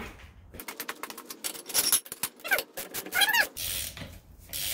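A ratchet wrench clicking rapidly as the freshly loosened, rounded lug nut is turned on its stud, followed by two short squeals that rise and fall in pitch.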